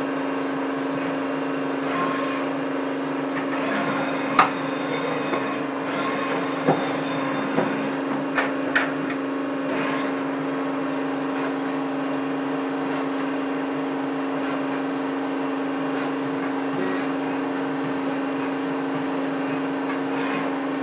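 Roperwerk Webo Turn WT400 CNC lathe running with a steady mechanical hum. A few sharp clicks come between about four and nine seconds in.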